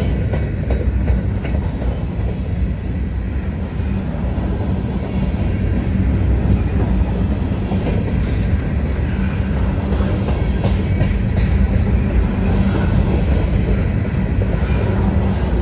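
Norfolk Southern freight train's cars rolling past: a steady, loud rumble of steel wheels on rail, with scattered clacks over the joints.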